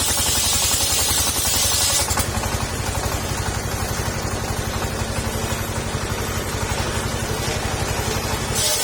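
Petrol-engine-driven circular saw running, the engine's low beat steady throughout. A loud high hiss of the blade cutting sengon wood fills the first two seconds, stops, and comes back near the end.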